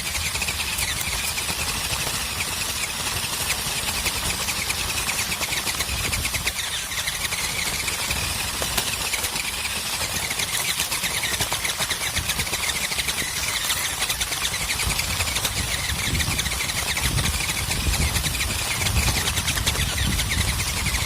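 RC truck's electric motor and gear drivetrain whining, the pitch rising and falling with the throttle, heard from on board. Over it is a continuous crackle and rattle of the wheels and chassis on rough ground, and low rumble that gets heavier in the second half.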